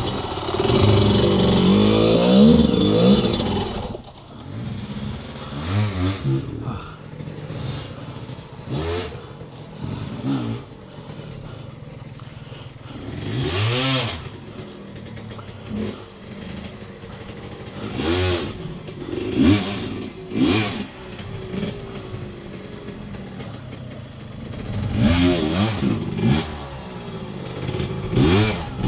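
Off-road dirt bike engine revving hard for the first few seconds, then blipped in short rising-and-falling bursts of throttle, about a dozen times, between lower running, with some clatter.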